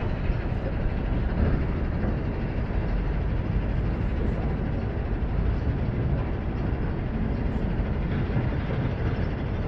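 Wind rumbling on the camera microphone: a steady low rumble with no distinct events.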